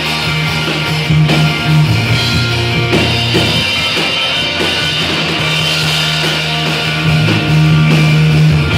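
Rock band playing live, with long held bass notes under guitar.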